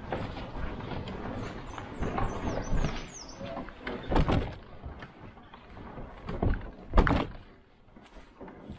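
Plastic NuCanoe kayak hull brushing and scraping through tall grass, with a few hollow knocks on the hull, the loudest about seven seconds in.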